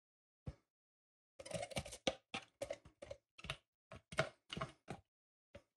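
Hollow plastic knocks as the red container of a manual onion chopper is tapped over a plastic mixing bowl to shake the chopped onion out. One knock, then from about a second and a half in a quick, uneven run of knocks, roughly three a second.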